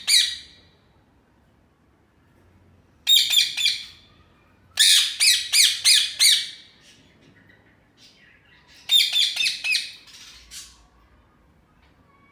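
Ringneck parrots (rose-ringed parakeets) screeching: a call trailing off at the very start, then three bursts of rapid, repeated shrill calls, about three, five and nine seconds in.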